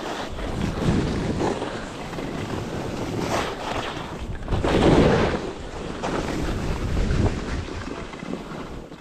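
Skis scraping and carving over packed, cut-up snow through a series of turns, each turn a rising and falling swoosh roughly every two seconds, the loudest about halfway through. Wind rushes over the microphone throughout.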